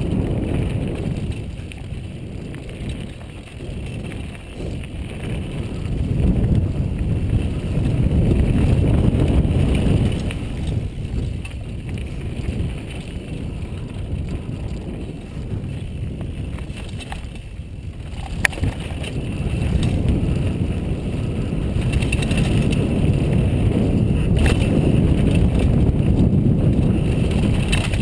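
Downhill mountain bike running over a dirt trail, with wind rushing over the microphone and the tyres and frame rattling. The noise swells and eases with speed, and there is one sharp click about two-thirds of the way through.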